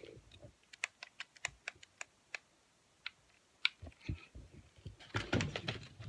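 Small plastic buttons being pressed: about ten sharp clicks at an uneven pace over the first few seconds, then a short stretch of handling noise near the end.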